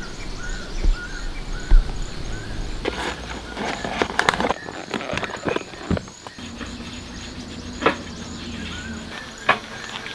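Outdoor forest ambience: a short high chirp repeated a couple of times a second, fading out midway and coming back near the end, with scattered sharp taps and knocks, several together a few seconds in.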